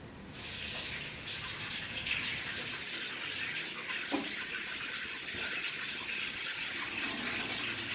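Thin clear plastic bag rustling and crinkling as a hand handles a soft rice bun inside it. There is a short sharp click about four seconds in.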